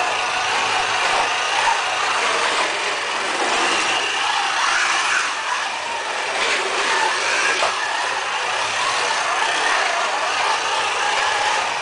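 1:32 scale slot cars lapping a plastic track, their small electric motors whining and rising and falling in pitch as they speed up and brake, with a few sharp clicks.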